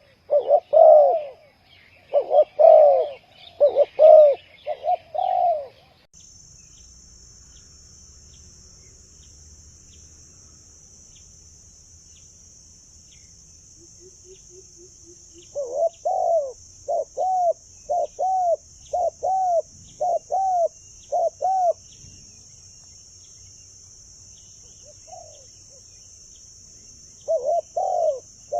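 Spotted dove cooing: repeated low coos in short phrases of a few notes each, pausing for several seconds in the middle. From about six seconds in, a steady high hiss runs underneath.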